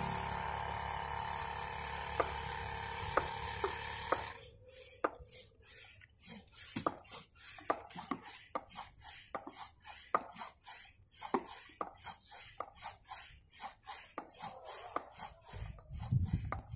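Hand pump inflating an inflatable SUP board: rhythmic hissing puffs of air with light clicks as the pump strokes, about two to three a second. A steady engine-like hum covers the first four seconds and then stops.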